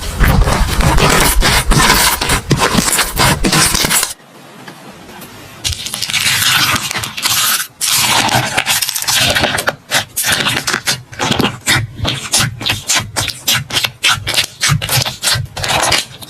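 Slime being squeezed and worked by hand, with dense sticky popping, crackling and scraping. There is a sudden break about four seconds in, and then closely spaced pops and clicks.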